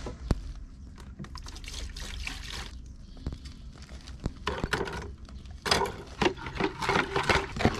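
Liquid poured from a plastic jug into a plastic washing-up bowl, a steady splashing pour. Then come several sharp clicks and splashes as rusty steel headlight retaining rings are lowered into the bowl.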